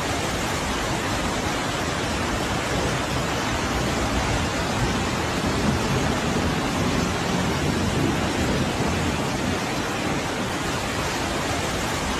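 Water rushing out of the Three Gorges Dam's spillway gates during a flood discharge: a steady, even rush with no breaks.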